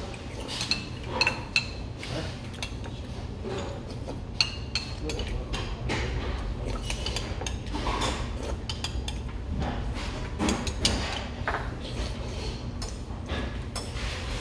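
Metal spoon clicking and clinking against a ceramic bowl, mixed with slurping and chewing of seafood soft tofu stew. A steady low hum runs underneath.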